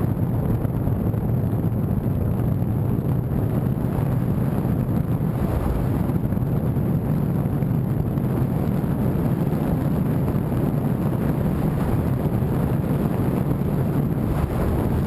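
Steady low rumble of a vehicle on the move, with wind buffeting the microphone.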